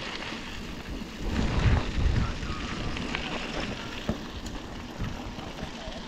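Wind rumbling on the camera microphone during a mountain-bike ride, with a rushing noise that swells briefly about two seconds in.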